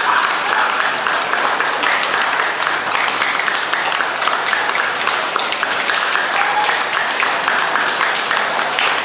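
Audience applauding, many people clapping at a steady, even level.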